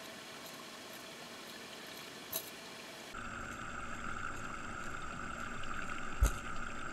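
Steady machine hum and hiss of an aquarium tank heard underwater. About three seconds in, a louder, steady whine-like hiss joins, and a single dull thump sounds near the end.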